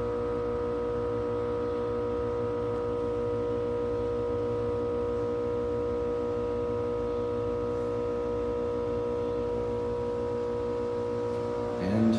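Steady drone of a 1973 Haughton DC geared traction elevator running as the car travels: several steady tones over a low hum. Right at the end a brief tone rises in pitch and grows louder.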